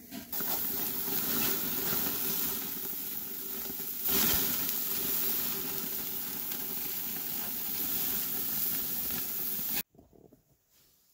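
Moose burgers sizzling on a grill over open flames: a steady, loud hiss that cuts off suddenly near the end.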